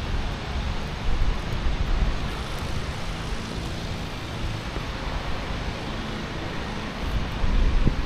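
Wind buffeting the microphone in uneven low gusts over a steady rushing roar.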